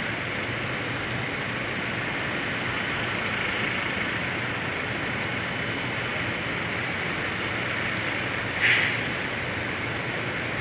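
Distant hi-rail truck and maintenance-of-way machines rolling toward the crossing with a steady engine rumble. Near the end comes one short, loud burst of air hiss, typical of an air brake.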